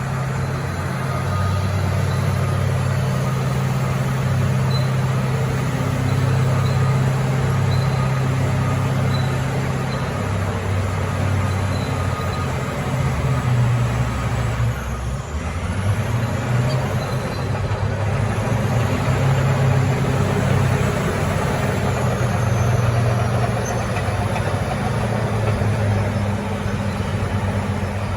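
Bulldozer diesel engines running continuously, their low engine note rising and falling several times as the machines work.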